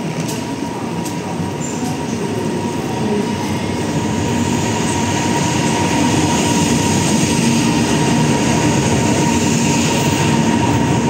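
ЭП2К (EP2K) passenger electric locomotive heard at close range: a steady, dense machine and rail noise with a constant high whine, growing louder over the first few seconds and then holding steady.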